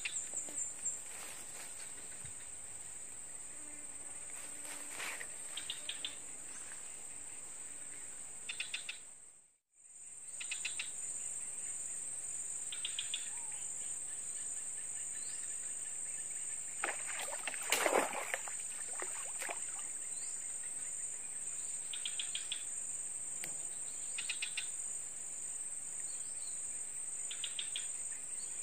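A steady, high-pitched chorus of insects, most likely crickets, with short bursts of rapid ticking calls every few seconds. The sound cuts out for a moment about nine seconds in, and there is one brief, louder noise a little past halfway.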